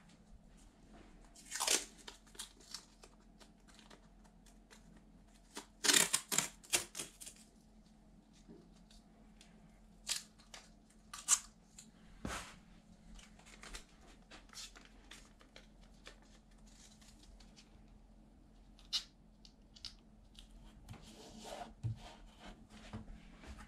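Large vinyl wall sticker being handled, peeled and pressed onto a wall by hand: irregular short ripping and crinkling noises, loudest in a quick cluster about six seconds in, with softer rubbing and rustling between.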